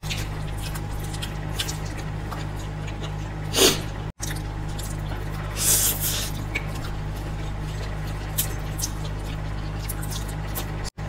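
Close-miked eating sounds of people eating noodles from forks: wet chewing clicks and smacks, with two louder slurps about a third of the way in and around halfway, over a steady low hum.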